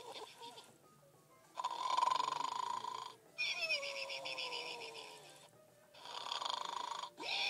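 Pink snoring toy pig playing its snore: a rasping breath in, then a whistle on the breath out that falls in pitch, with short gaps between. The cycle repeats about twice.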